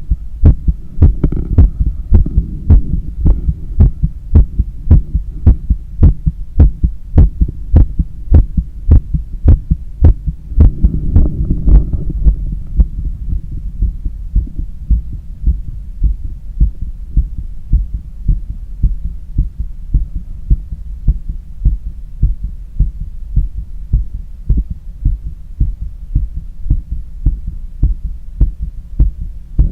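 Human heartbeat heard through a stethoscope on the chest: a steady, even run of low lub-dub thumps, the heart of a runner cooling down after a long run. A low rushing noise swells under the beats twice, about a second in and again around eleven seconds in.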